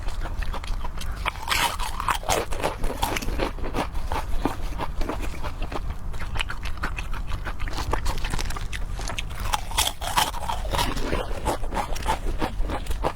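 Close-miked eating sounds: a person chewing with many quick wet mouth smacks and clicks.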